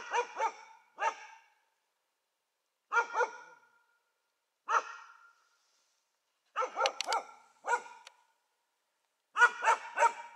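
Karelo-Finnish laika barking in groups of one to five quick barks, with a pause of one to two seconds between groups. It is the laika's hunting bark, held toward the trees, that marks game it has found.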